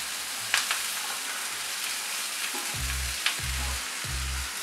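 Oil sizzling in a small pan as crumbled steamed moong dal is spooned into the tempering, with a few sharp clinks of a steel spoon against the bowl and pan.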